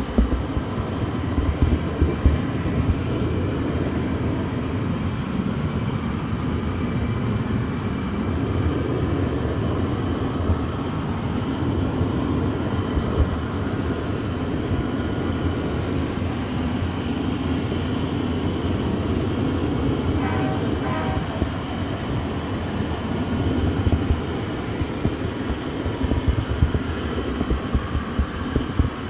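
Train running along the track: a steady rumble with occasional knocks, and a short high-pitched sound about twenty seconds in.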